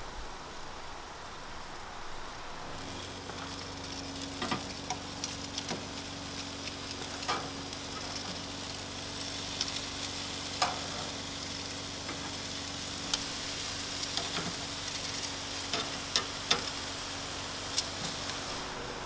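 Marinated chicken skewers sizzling on a hot grill grate. The sizzle comes up about three seconds in as a steady hiss over a low hum, with sharp pops and clicks here and there.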